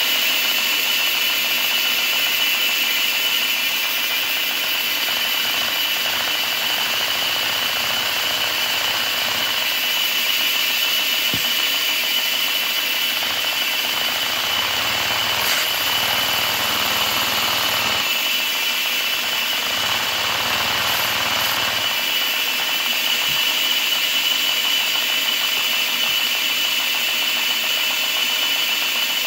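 A Lego vacuum engine running, driven by the suction of a vacuum cleaner whose steady high whine sits over the clatter of its plastic mechanism. The running shifts in speed through the middle as the engine is revved.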